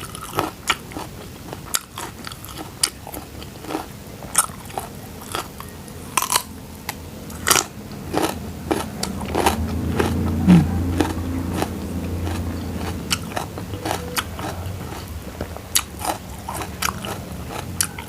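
Close-miked biting and chewing of crunchy food, with many sharp crunches throughout. A low hum swells through the middle and fades.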